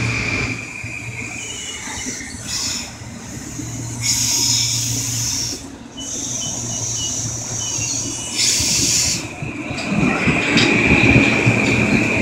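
Metro-North M8 electric multiple-unit train approaching and pulling into the station, with a low hum and two bursts of hiss as it nears. About ten seconds in it grows louder as the cars roll past, a rumble with a steady high-pitched wheel squeal.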